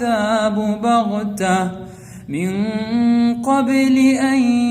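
A man's voice reciting the Quran in melodic tajweed, drawing out long held notes with small turns in pitch. There is a short pause for breath about two seconds in before the chant resumes.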